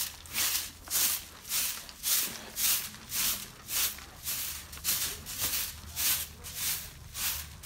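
Bristle hand broom (jhaadu) sweeping dust and grit across a dry dirt floor: a steady run of short swishing strokes, a little under two a second.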